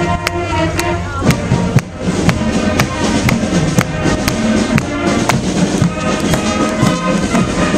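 Marching band playing: brass horns over a drum beat that strikes about twice a second.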